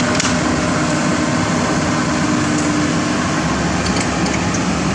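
Heavy road-construction machinery running steadily: a continuous engine hum with a steady tone that fades out about three seconds in, and a few faint clicks.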